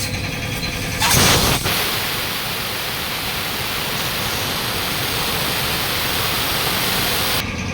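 Pressurised air rushing out in a loud, sudden burst about a second in, then a steady hiss that cuts off abruptly near the end.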